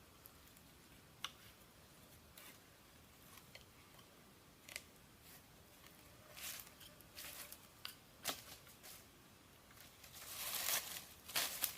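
Quiet handling sounds: scattered sharp clicks and brief rustles or scrapes, with a longer rustling scrape about ten seconds in and a few clicks after it.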